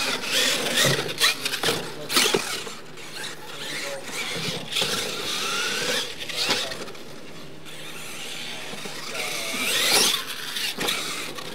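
Radio-controlled monster trucks racing on dirt, their motors whining up and down in pitch as they speed up and slow down, with sharp knocks from the tyres and landings. About ten seconds in, the whine climbs steeply and is at its loudest as a truck takes off from a jump.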